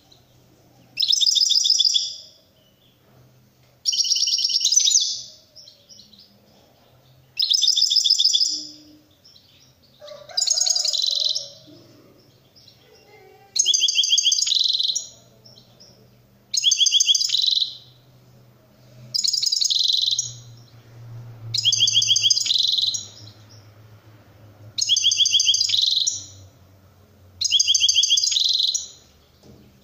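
Caged European goldfinch singing the repeated rattling phrase that Turkish keepers call "şakşak". It gives about ten bursts, each about a second long and made of rapid high notes, roughly every three seconds.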